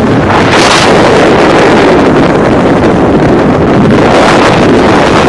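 Loud, steady wind buffeting the phone's microphone, a dense roaring rush with no clear pitch.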